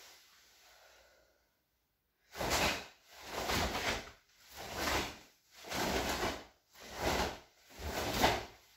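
A run of about seven swishes, roughly one a second, starting a couple of seconds in: a karate gi swishing and sharp breaths with each technique of the kata Heian Sandan.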